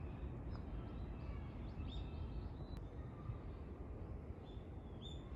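Steady low outdoor background rumble with a few short, high bird chirps: one about half a second in, a cluster about two seconds in, and a few more near the end.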